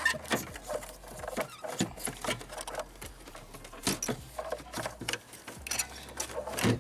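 Irregular clicks, knocks and scrapes of hands handling the old diesel fuel filter and its mounting bracket, with a louder knock near the end.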